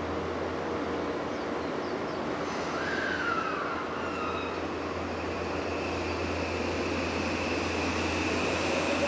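Odakyu 5000-series electric train starting to pull away from the platform: a steady hum with a high steady tone joining about four seconds in, and near the end a whine that rises in pitch as the train gathers speed.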